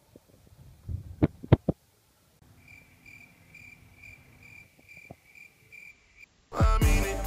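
A cricket chirping: a high, pulsing chirp repeated about three times a second, used as the comedy "crickets" effect for an awkward silence. Before it, a few sharp knocks about a second in; background music cuts back in near the end.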